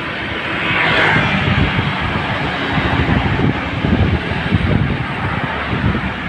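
Wind buffeting the microphone over steady road and traffic noise while moving through traffic, with a louder hiss swelling about a second in.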